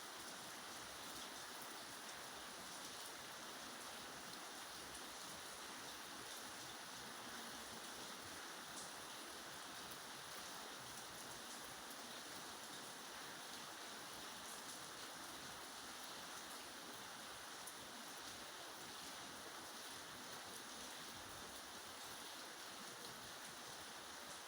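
Steady rain falling: an even, faint hiss with scattered small drop ticks.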